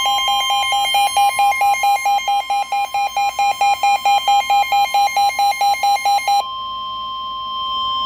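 Midland weather radio sounding its tornado-warning alert: a loud two-pitch warble that alternates about four times a second, then about six seconds in it changes to a steady single tone.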